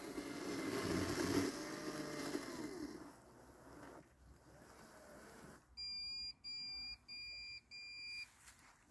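Landxcape 790 battery robot lawn mower running through tall wet weeds, its motor whine rising and falling in pitch for the first few seconds and then fading. Then come four even electronic beeps, each about half a second long.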